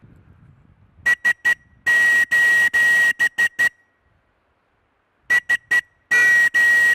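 Plastic emergency whistle blown in Morse code SOS: three short blasts, three long, three short, all on one steady high pitch. After a pause of about a second and a half the SOS pattern starts again.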